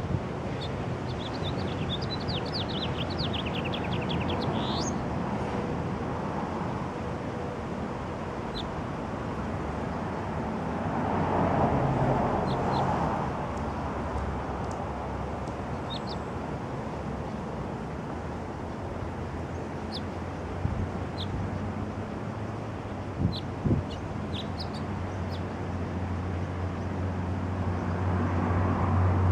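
Outdoor background of wind and traffic noise. About a second in, a small songbird sings a quick run of notes ending in an upward sweep, then gives scattered single chirps. Near the end a vehicle's engine hum grows louder.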